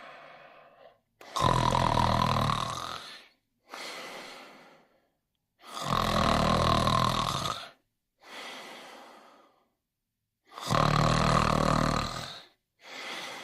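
Slow snoring: three long, loud in-breath snores with a low buzz, about four and a half seconds apart, each followed by a quieter out-breath that fades away.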